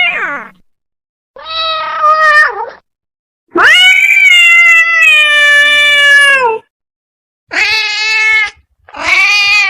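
A cat meowing five times with short silent gaps between. The middle meow is long and drawn out, about three seconds, dropping in pitch at the end.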